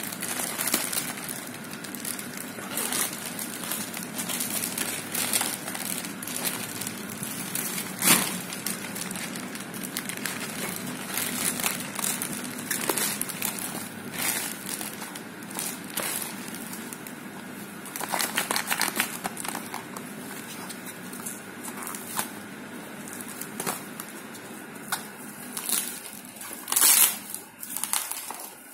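Plastic mailer bag and clear plastic packing wrap crinkling and rustling as they are handled and unwrapped by hand, in irregular bursts, with a sharp louder crackle about eight seconds in and a run of louder crackles near the end.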